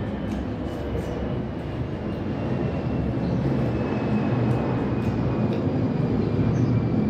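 A steady engine rumble that slowly grows louder, with a faint whine gliding slightly down in pitch, like a motor vehicle or aircraft passing outside. A few faint clicks sit on top.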